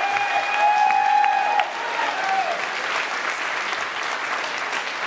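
Audience applauding and cheering, with held whoops over the clapping for the first two and a half seconds, then steady applause.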